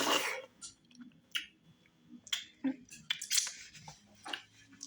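Close-miked wet chewing and lip smacking of a mouthful of fufu with slimy okra stew and tripe. There is a short rushing burst at the start, then scattered sharp mouth clicks and smacks.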